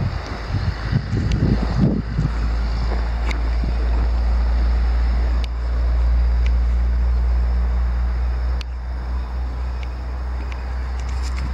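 Wind buffeting the camera microphone: a heavy low rumble with gusts, easing slightly about three-quarters of the way through.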